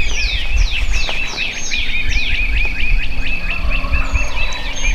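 Songbirds singing in spring woodland: a steady run of short repeated chirps, about five a second, overlapped by a series of quick falling whistles, over a low rumble.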